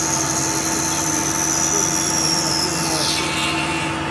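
Tormach PCNC 1100 CNC mill cutting a 4 mm slot through a metal bracket with an end mill under flood coolant, over a steady machine hum. A high cutting whine slides slowly down in pitch and then drops sharply about three seconds in as the cutter breaks through.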